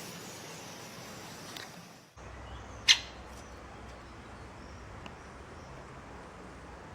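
A bird gives one loud, sharp, very short chirp about three seconds in, with a few faint chirps, over steady outdoor hiss. The background changes abruptly about two seconds in.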